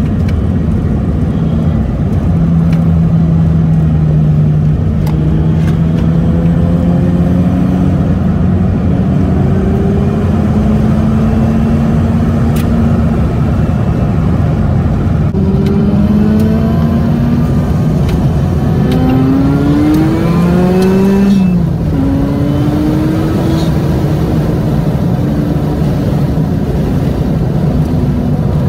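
Mazda RX-7 FD's rotary engine heard from inside the cabin, played back 1.5 times fast so it sounds like a three-rotor 20B. It runs at steady revs, then climbs hard through rising revs in the second half and drops sharply at a gearshift, then eases off with the revs slowly falling.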